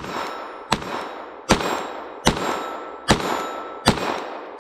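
Glock 44 .22 LR pistol firing six shots at a steady pace, about one every 0.8 seconds, each crack fading out before the next.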